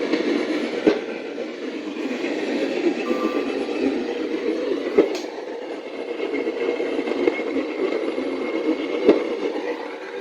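Static hiss from a weakly received radio station, with a faint click about every four seconds.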